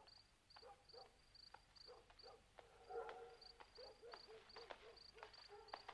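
Faint crickets chirping in a steady pulsing rhythm, with a man's footsteps on an alley's paving.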